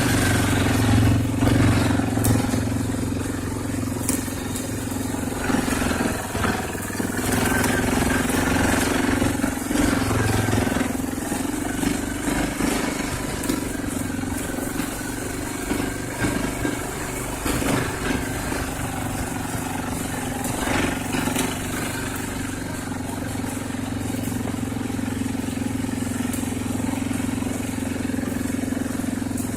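Arctic Cat TBX 500 ATV engine running at a steady pace while riding, with occasional knocks.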